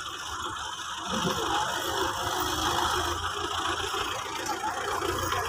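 Farm tractor engines running, with a low rumble and mechanical clatter that get louder about a second in.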